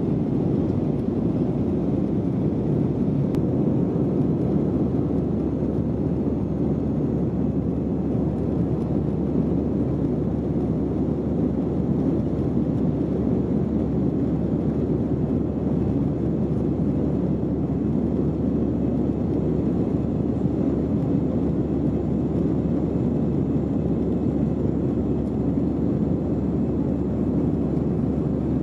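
Steady drone inside the cabin of an Airbus A320-214 in flight, heard from a window seat over the wing: the hum of its CFM56 jet engines blended with rushing airflow over the fuselage, low and even throughout.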